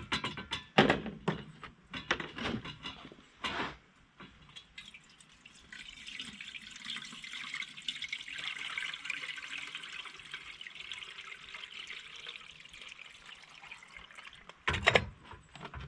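A coffee percolator being filled with water. There are a few clinks and knocks of the pot being handled, then water runs steadily from a tap into the pot for several seconds, and a few more knocks come near the end.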